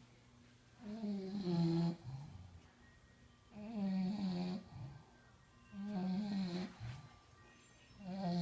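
Bulldog snoring steadily, one pitched snore about every two seconds: three full snores and a fourth starting near the end.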